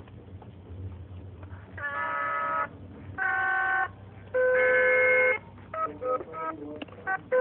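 Fisher-Price Sing-a-ma-jigs plush toys singing when squeezed. Three held electronic voice notes of about a second each, then a quicker run of short notes near the end.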